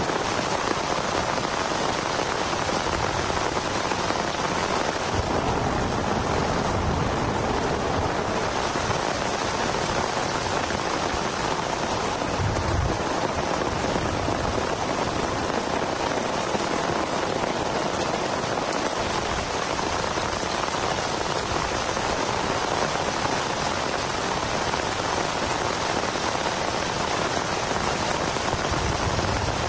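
Heavy rain falling steadily, an even unbroken hiss of drops, with a brief low rumble about twelve seconds in.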